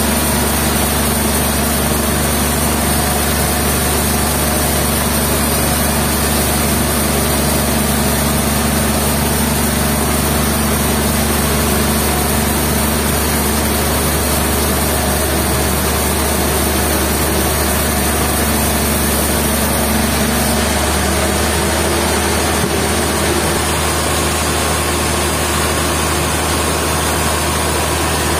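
Sawmill machinery running steadily with a loud engine hum; the tone of the hum shifts about 21 seconds in.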